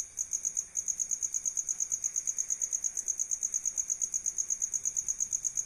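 A cricket chirping: a steady high-pitched pulsing trill, about seven pulses a second, with one short break just after the start.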